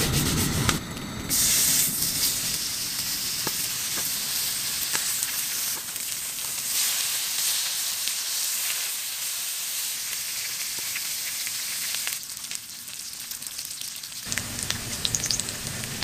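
Slices of pork sizzling and frying on a hot griddle pan over a gas canister stove, with scattered clicks of tongs against the pan. A low steady rush is heard at the start and again near the end.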